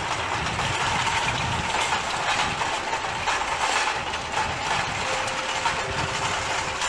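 Steady electrical and mechanical running hum with a thin whine, from a standing DB electric locomotive and a train of baggage trolleys being towed past, with light rattling. The whine steps to a lower note about five seconds in.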